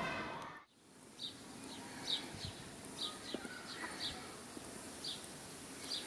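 Faint outdoor ambience with small birds chirping: short high chirps, one or two a second, over a low steady background. Near the start a fading sound cuts off into a moment of silence before the chirping begins.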